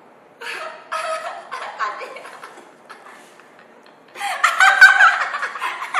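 Girls giggling and laughing in short broken bursts, loudest from about four seconds in.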